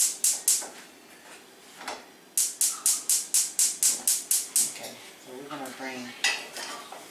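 A spatula stirring and scraping around a small saucepan of melting cheese in quick, even strokes, about four a second. The strokes pause for about two seconds, then resume briefly before a voice takes over near the end.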